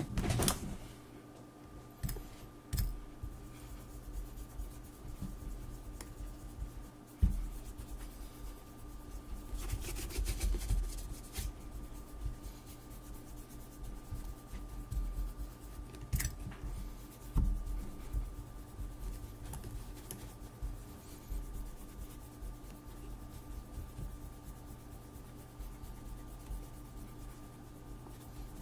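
Irregular rubbing on a leather boot during conditioning and polishing, with scattered light knocks of handling, over a faint steady hum.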